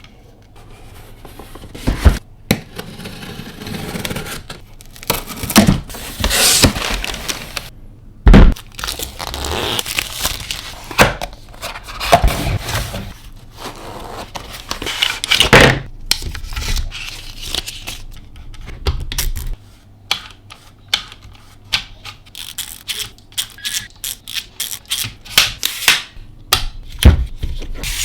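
Packaging of a Peak Design Travel Tripod being opened and handled: tearing, scraping, crinkling and several loud thunks, then a quick run of clicks and taps over the last several seconds.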